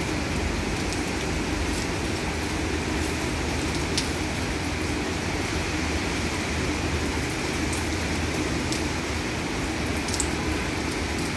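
Heavy downpour on a roof, with water draining off the eaves: a steady rushing hiss with occasional sharp drip ticks, one about four seconds in and another near the end.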